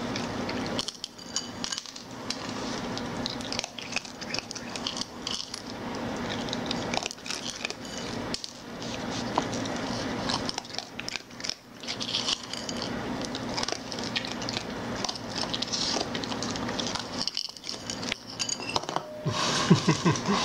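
A raccoon crunching dry pet kibble, with small clicks and clinks of a ceramic bowl, over a steady low hum. Near the end a louder, busier stretch of handling noise.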